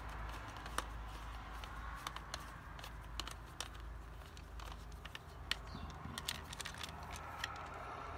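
Hand screwdriver turning the lid screws into a plastic controller box for an automatic chicken coop door: faint, irregular small clicks and scrapes over a steady low hum.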